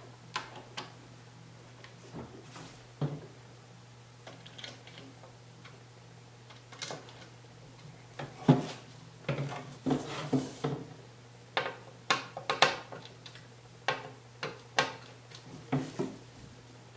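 Irregular clicks and knocks of hard plastic as a Giffin Grip's bottom plate and its brackets are handled and loosened to move them a notch, coming thicker in the second half.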